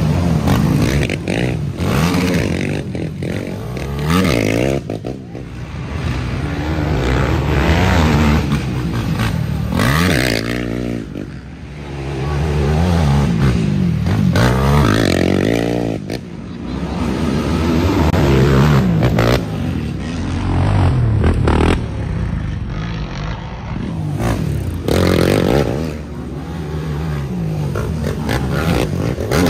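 Racing ATV (quad) engines revving hard on a steep dirt hill climb, the pitch climbing and dropping again and again as the throttle is worked, with one machine after another passing close by.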